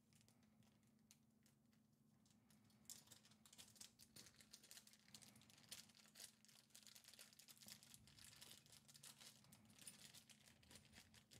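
Faint crinkling and rapid small clicks of hands rummaging through keyboard accessories and their packaging, starting about three seconds in, over a low steady hum.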